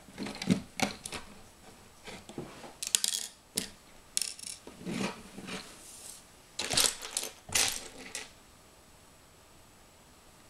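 Plastic Lego bricks clicking and clattering as pieces are handled and pressed onto a build: an irregular run of small sharp clicks and knocks that stops about eight seconds in.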